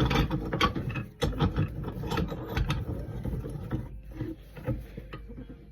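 Irregular mechanical clicking and clattering, like a ratchet or loose parts being worked by hand. It is busiest in the first three seconds and thins out towards the end.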